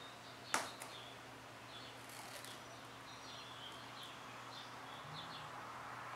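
Quiet hand handling of thin tape strips on a paper pad: a sharp tap about half a second in, a smaller one just after, then faint scattered little crinkles and squeaks as the tape is laid down.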